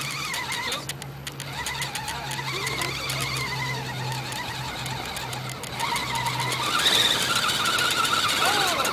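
Radio-controlled car's motor and drivetrain whining, the pitch rising and falling as the throttle changes. From about seven seconds in the whine turns higher and steadier.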